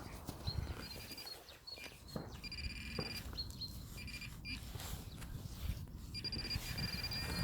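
Metal detector giving a steady high electronic tone over a target, sounding in a few stretches, with scuffing and small clicks of soil being worked by hand.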